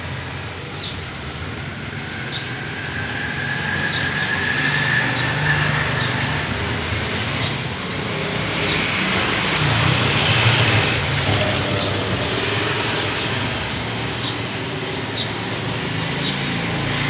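Steady street traffic noise from passing vehicles, swelling louder twice. Short high chirps recur about once a second over it.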